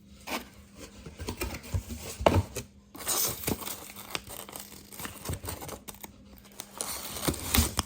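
Packaging crinkling and rustling as a boxed glass teapot is unpacked by hand, with a few sharp knocks and clicks.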